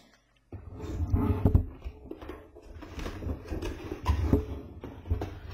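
Cardboard box being handled and pried open: irregular knocks, scrapes and rustles with low thuds, starting about half a second in.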